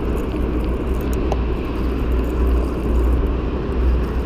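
Steady low rumble of city road traffic, with faint ticks from a spinning reel being cranked.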